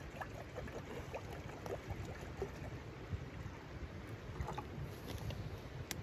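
Water poured from a plastic bottle into a steel frying pan, making small scattered splashes and glugs, over a low steady rumble. A sharp click near the end.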